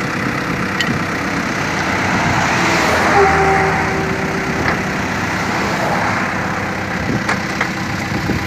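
A vehicle engine idling steadily, with a few faint clicks now and then.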